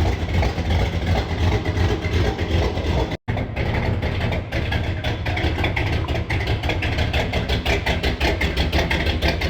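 1970 Chevrolet Chevelle's V8 idling unevenly after a cold start: a little choppy, which the owner puts down to the cold. The sound cuts out for an instant about three seconds in.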